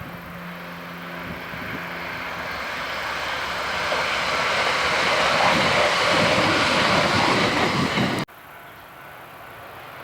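Electric train approaching and passing at speed: its running noise builds steadily over several seconds to a loud rush of wheels on the rails, then cuts off suddenly about eight seconds in.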